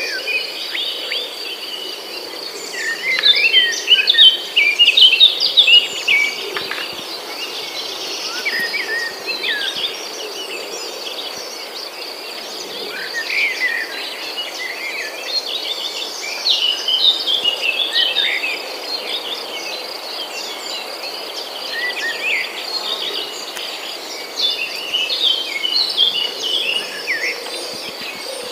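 Birds chirping and twittering in many short rising and falling calls over a steady high-pitched insect trill, busiest and loudest a few seconds in.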